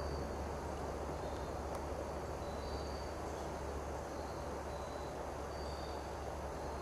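Steady outdoor woodland ambience: a low hum and an even hiss, with faint short high chirps about once a second.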